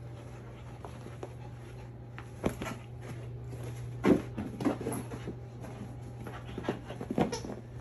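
A dog moving about on the floor: scattered short thumps and scuffs, the loudest about four seconds in, over a steady low hum.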